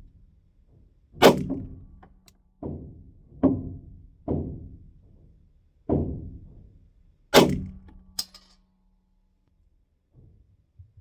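Glock 45 9mm pistol firing a group of 115-grain rounds: six shots at an uneven pace, about one to one and a half seconds apart, each with a short echoing tail, followed by a lighter sharp click about a second after the last shot.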